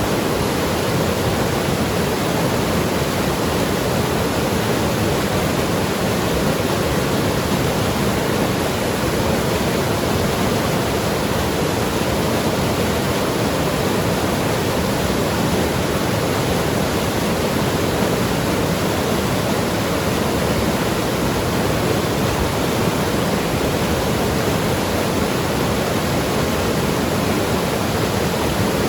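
Mountain river rushing and gurgling over rocks, a steady, unbroken flow of water.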